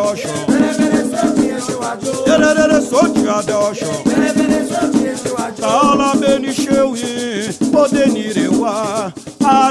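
Candomblé chant: voices singing a sacred song over a steadily shaken rattle, with a held, wavering note a little before the end.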